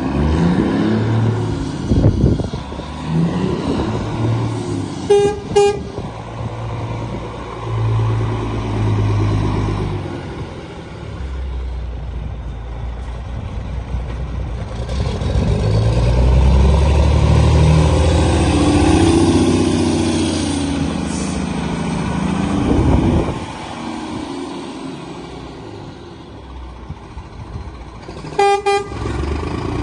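2011 Volvo FM 450 tractor unit's 13-litre straight-six diesel running as the lorry drives through the yard, getting louder around the middle as it comes close. Its horn gives two short toots about five seconds in and a quick run of toots near the end.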